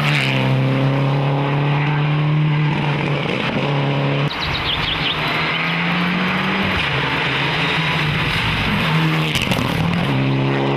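Rally cars on an asphalt special stage, engines running at steady high revs as each car passes, with a short tire squeal about four seconds in. The engine note changes pitch about four seconds in and again near the end.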